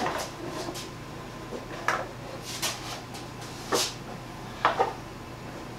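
A handful of light wooden knocks and clunks as a weighted sled on rollers is pulled up a wooden ramp and set in place, over a low steady hum.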